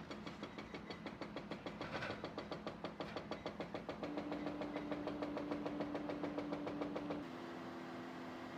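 Heavy construction machinery: rapid, even knocking, about five or six blows a second, over a steady engine hum. The knocking stops about seven seconds in, leaving the engine running.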